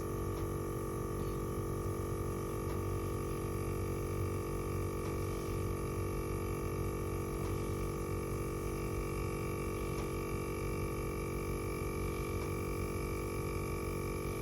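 VIAIR 450P portable 12-volt air compressor running steadily with an even motor hum while inflating a trailer tire, the pressure climbing from about 53 to 55 psi.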